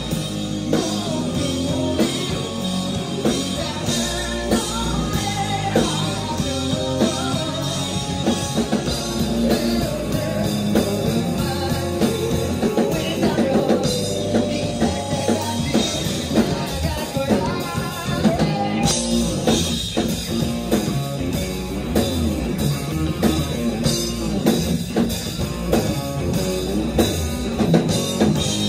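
Live rock band playing: distorted electric guitar, electric bass and a drum kit, with a singer's voice over them.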